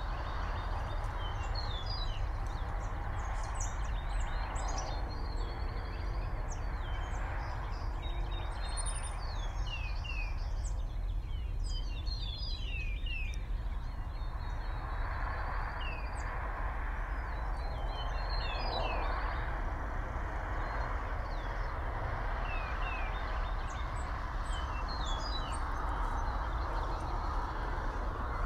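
Small songbirds chirping around the nest tree, many short, quick down-slurred chirps scattered throughout, over a steady outdoor hiss.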